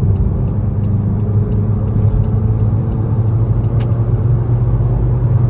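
Honda Civic G9 four-cylinder engine and exhaust heard from inside the closed cabin while driving, a steady low drone, with the Super Edition electronic exhaust cutout fully closed. The owner finds it quite quiet in this mode.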